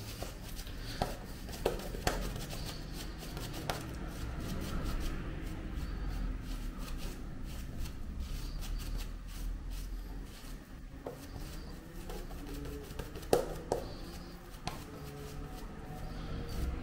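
Shaving brush swirled and scrubbed over a lathered beard: bristles rubbing wet lather against stubble in a steady scratchy texture, with a few sharper ticks.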